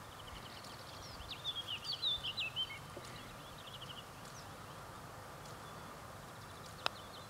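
A songbird singing a run of quick, high chirps and short gliding notes over a steady outdoor background for the first few seconds. Near the end, one sharp click: a putter striking a golf ball.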